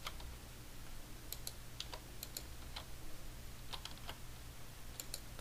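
Computer keyboard keystrokes, about a dozen irregular taps, some in quick pairs, as extrude and scale shortcuts are pressed over and over. A faint steady low hum lies underneath.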